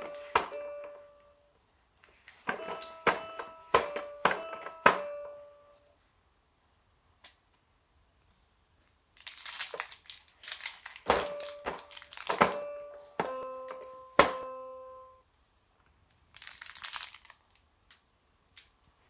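Hanging toys on a baby's play gym being grabbed and shaken: plastic rings and links clacking, with short ringing chime-like notes, and a crinkly fabric toy crinkling in between. The sounds come in several bouts with pauses.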